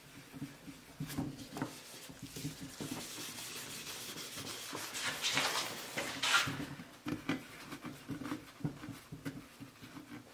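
Rag and gloved hands scooping stiff mineral-oil and carnauba-wax board butter from a paper cup and rubbing it onto an end-grain wooden cutting board: soft, irregular rubbing and wiping, loudest a little past the middle.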